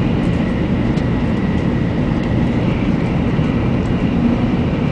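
Steady low rumble of a train running at speed, heard from inside the passenger car, with a faint thin whine above it for the first few seconds.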